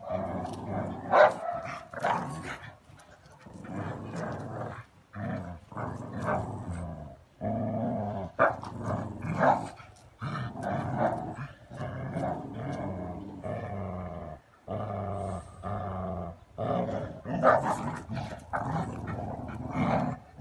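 Dogs growling steadily while pulling against each other in a tug-of-war over a rubber toy, the growl breaking off and restarting every second or two, with louder sharp outbursts now and then.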